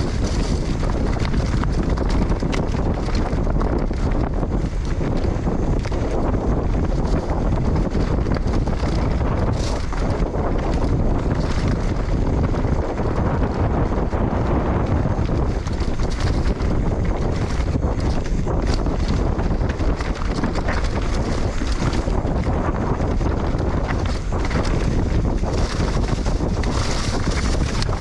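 Wind rushing over the microphone of a mountain bike ridden fast on a trail, with steady tyre and trail noise underneath and scattered sharp clicks and knocks from the bike.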